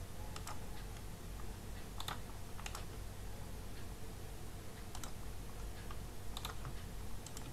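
Computer mouse clicking a few times at irregular intervals, several clicks in quick press-and-release pairs, over a steady low hum.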